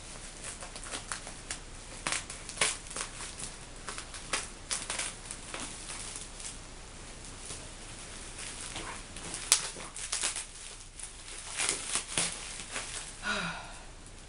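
Taped parcel packaging being worked open by hand: irregular crinkling, rustling and tearing, with a sharp snap about nine and a half seconds in.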